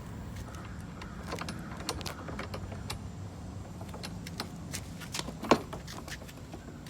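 Light metallic clicks and rattles of bolts and nuts being handled and tightened on a lawnmower's handle, with one sharper knock about five and a half seconds in, over a low steady hum.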